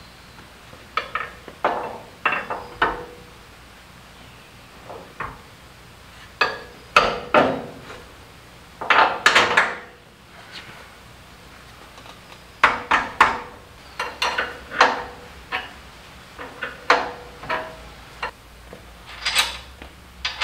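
Metal clanking and knocking as a steel trailing arm is worked into its frame bracket on a pickup's rear suspension. The knocks come in uneven clusters, some leaving a short ringing note.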